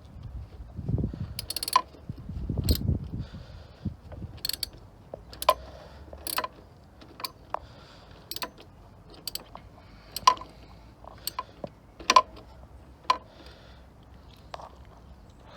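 Metal hand tools and parts being handled: sharp clicks and rattles about once a second, with low rumbling handling noise in the first few seconds.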